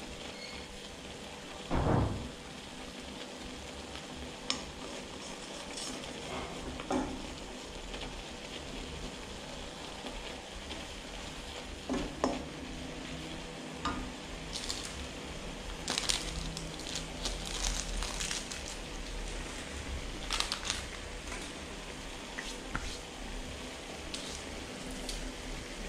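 Noodles and chicken sizzling as they are stir-fried in a wok, with a steady hiss of frying. A spatula scrapes and knocks against the wok now and then, with one dull knock about two seconds in and a busier run of clatter in the second half.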